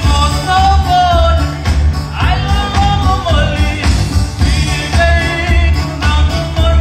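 Live band playing: a man sings a wavering melody over electric guitar and keyboard, with a strong deep bass underneath.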